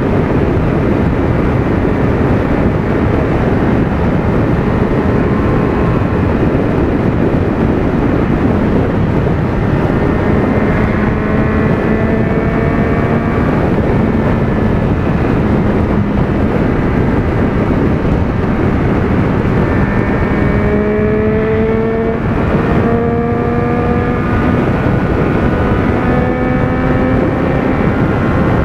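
Motorcycle at highway speed, recorded on the bike: dense wind and road noise with the engine note underneath, which climbs slowly in pitch several times, most clearly in the second half.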